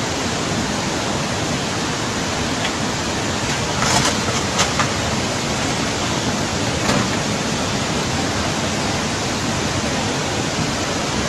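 Rushing floodwater torrent: a steady, loud rushing noise of fast muddy water pouring down a street, with a few brief knocks about four seconds in and again near seven seconds.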